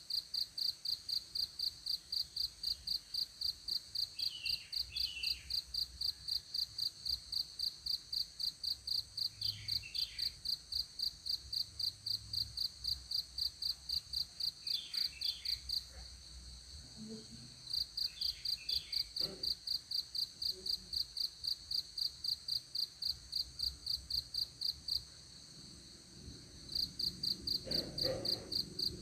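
A cricket chirping in an even pulse of about three chirps a second, stopping twice for a second or two. Faint short higher calls come and go.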